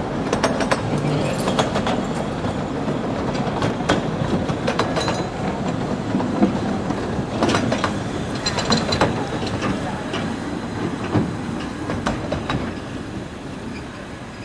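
Miniature 15-inch-gauge passenger carriages rolling past on the track, their wheels rumbling with irregular clicks and clatters over the rails. The sound fades near the end as the last carriage moves away.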